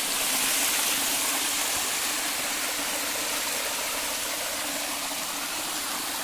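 Shallow river water pouring over a low, mossy concrete weir in many small cascades: a steady rush of falling water, a little louder in the first two seconds.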